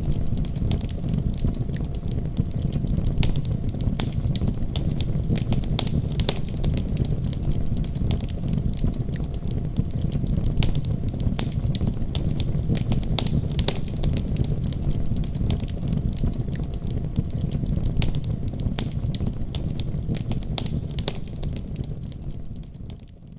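Fire burning in a fireplace: a steady low rumble of flames with frequent sharp crackles and pops. It fades away near the end.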